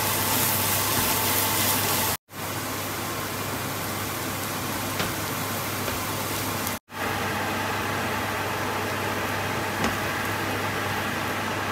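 Mushroom and egg scramble frying in a non-stick wok on a gas hob: a steady hiss with a low hum under it, and a couple of faint clicks from the spatula. The sound cuts out completely for a moment twice.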